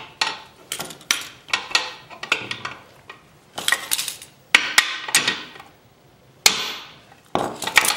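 Hammer tapping on a socket and extension to drive a needle bearing into an aluminium motocross swingarm's pivot bore: a series of light metallic taps and clinks, seating the bearing to its recessed depth. A single louder ringing strike comes about six and a half seconds in.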